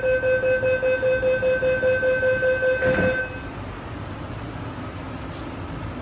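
MTR R-Train door-closing warning beeper: a rapid pulsing tone, about four beeps a second, sounding for about three seconds and ending with a thud as the doors shut. After that the train's steady hum.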